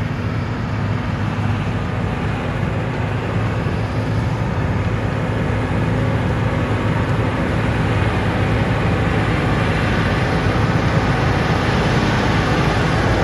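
A large engine running steadily with a deep hum and a rushing noise over it, growing gradually louder.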